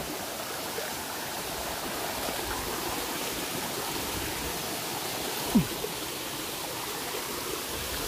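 Steady rush of a waterfall and the stream below it running over boulders. A single short thump, the loudest moment, comes a little past halfway.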